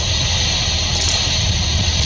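Falcon 9 rocket's nine Merlin engines heard from miles away as a steady, deep rumble of launch noise.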